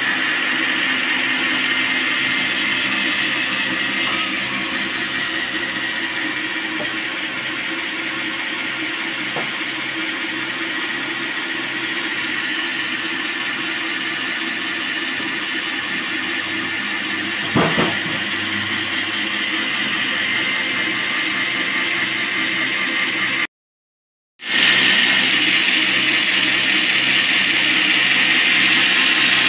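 Band sawmill running with a steady mechanical drone and hiss, with one sharp knock about two-thirds of the way through. The sound drops out for about a second near the end, then returns louder and brighter.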